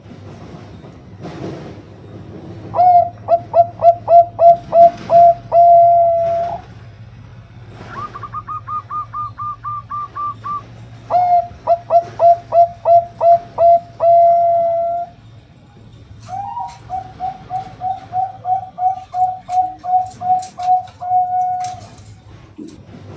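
Perkutut (Bangkok-type zebra dove) cooing: quick runs of short coo notes, each run ending in a long held final note, three runs in all. Between the first two runs comes a fainter, higher-pitched run of notes. A steady low hum lies under it.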